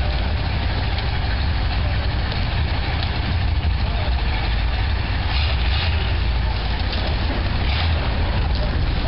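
Monster truck engine running at low revs as the truck creeps forward and turns slowly, a steady low sound with no revving.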